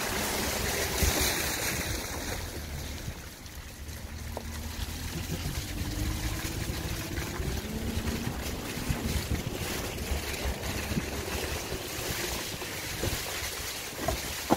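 Porsche Cayenne S driving along a muddy track: its tyres splash through a puddle about a second in, then the engine runs low under tyre noise on wet ground, with wind noise on the microphone. There is one sharp knock near the end.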